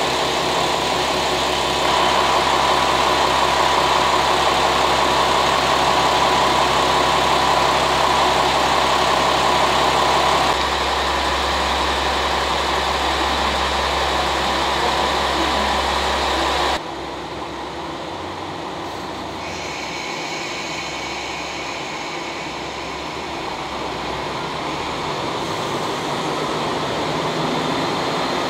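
Underfloor diesel engines of JNR KiHa 40-series railcars idling close by: a steady hum with a held mid-pitched tone. The sound changes abruptly about 11 seconds in and drops in level about 17 seconds in, then slowly grows louder.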